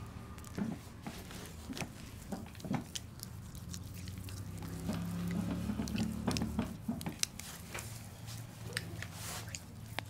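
Hands rubbing and kneading a lathered bare back, giving irregular wet squishing and light smacking sounds.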